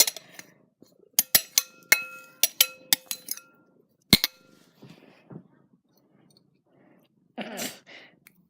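A metal spoon clinking against a soup bowl about a dozen times in quick succession, each strike ringing briefly, as soup is scooped up. One more clink comes about four seconds in, and a short burst of noise comes near the end.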